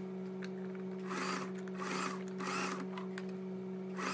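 Singer electric sewing machine running, a steady hum as it stitches bias binding onto a blouse neckline.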